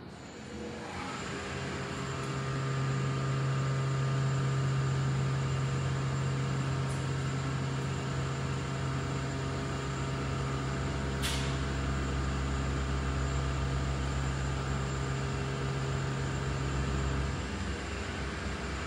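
Motorised gym cardio machine running with a steady low hum that starts up about a second in. There is a single click just past the middle, and the hum drops off near the end.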